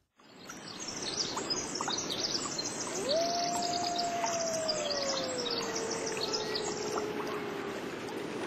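Many small birds chirping over a steady hiss, fading in during the first second. About three seconds in, a single long clear call swoops up and then slides slowly down in pitch over some five seconds.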